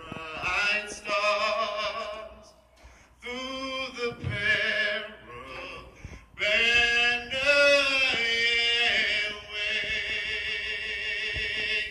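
A solo singer over a public-address system, unaccompanied, singing phrases with short pauses between them and ending on a long held note with vibrato.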